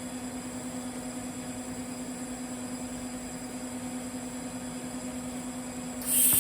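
Steady electrical hum from a TIG welding setup, then a loud hiss that starts suddenly near the end as the TIG arc strikes.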